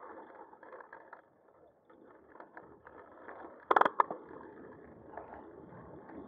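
Steady noise of a bicycle ride picked up by a camera on the bike: rolling and wind noise, with a short burst of two or three sharp knocks or rattles about four seconds in.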